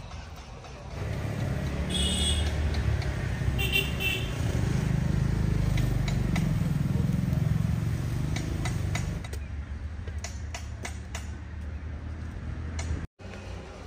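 A motor vehicle's engine rumbling as it passes close by, with two short horn toots about two seconds apart, and a few light clicks near the end.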